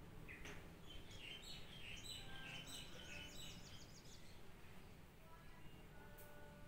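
Small birds chirping in a quick run of short, high chirps for a few seconds over low background rumble. A faint steady ringing tone sets in near the end.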